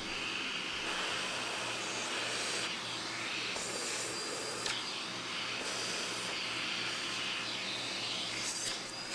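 Vacuum cleaner running steadily with a high motor whine, its nozzle sucking dust out of a PlayStation 5's dust traps; the hiss of the suction changes pitch and brightens several times as the nozzle moves over the openings.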